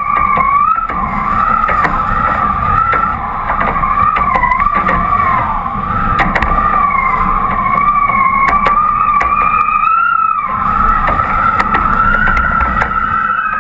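Hydrofoil whistling while the board flies over the water: one high whine that wavers up and down in pitch, rising a little about ten seconds in. A steady rush of wind and water runs beneath it.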